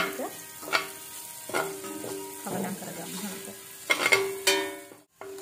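Slotted metal spoon scraping and clinking against a stainless steel pan as dried red chillies, garlic and chilli flakes are stirred, sizzling in hot oil. The scrapes come roughly once a second, with a brief drop-out near the end.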